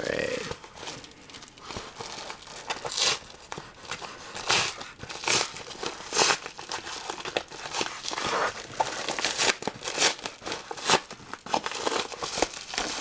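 Yellow kraft padded mailer being torn open and handled: paper crinkling and tearing in irregular bursts.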